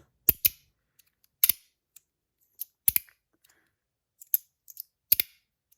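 Fidget slider being slid back and forth, snapping into its end stops with sharp clicks, some in quick pairs, at an uneven pace.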